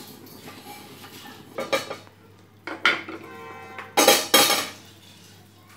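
Roasted kalonji (nigella) seeds being scraped and knocked out of a nonstick pan with a wooden spoon onto a steel plate: several scrapes and knocks of utensil on pan and plate, a metallic clink that rings on briefly about three seconds in, and the two loudest knocks about four seconds in.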